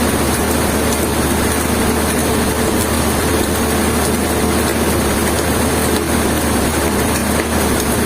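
Heavy machinery running steadily: a constant loud engine drone that holds the same pitch and level throughout.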